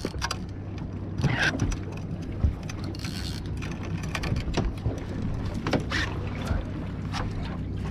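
Boat engine running with a steady low hum under wind and water noise, with a few scattered light clicks and knocks.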